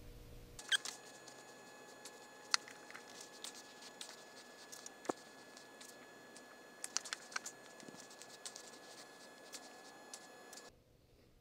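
Faint scattered clicks and taps from handling a plastic squeeze bottle of wood glue and the boards while a bead of glue is laid along a board's edge.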